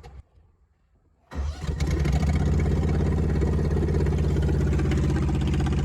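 Lawn mower engine starting up about a second and a half in, then running steadily.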